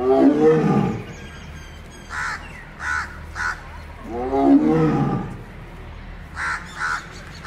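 Tiger roaring twice, each roar about a second long and falling in pitch, one at the start and one about four seconds in. Short bird calls sound five times in between.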